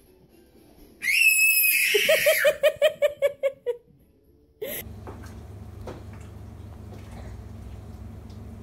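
A small child's high-pitched squeal about a second in, running straight into a string of about ten quick giggles. After a short quiet gap a steady low hum and room noise take over, with a few faint knocks.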